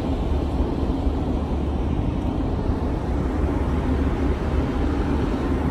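Semi truck's diesel engine running with a steady low rumble and hum.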